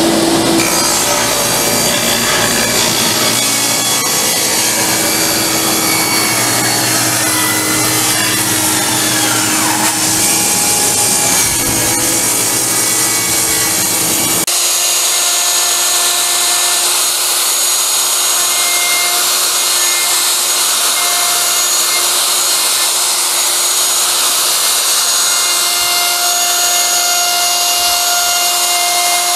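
Table saw cutting through a thick butcher block countertop. About halfway through the sound changes abruptly to a handheld DeWalt router running along the top's edge.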